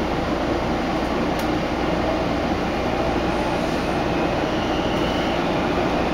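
Washington Metro 3000-series subway car pulling out of a station, heard from inside the car: a steady rumble of motors and wheels on the rails.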